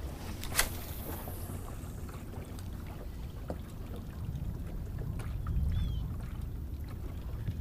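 Wind rumbling on the camera microphone, with a sharp click about half a second in and the light ticking of a spinning reel being cranked in.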